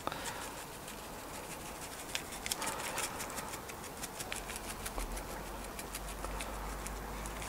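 Spice shaker of dry rub being shaken over raw spareribs: faint, rapid, irregular ticking of the rub grains and the shaker.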